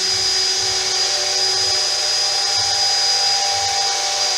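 Electric drill running at a steady high whine, boring a rivet hole through the car's sheet-steel body panel.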